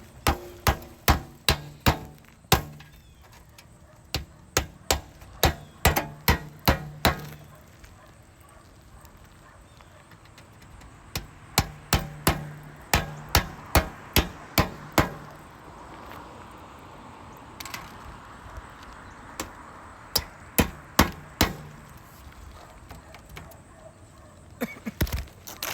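Hammer blows on a roof, in runs of several quick strikes about two to three a second, with pauses between the runs: roofing nails being driven while the box vent is refastened.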